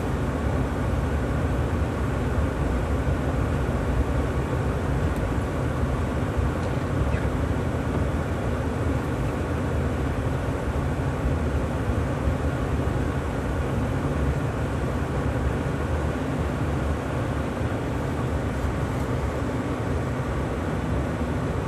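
Steady low rumble of a truck on the move, heard from inside the cab: engine and tyres running on a snow-covered road.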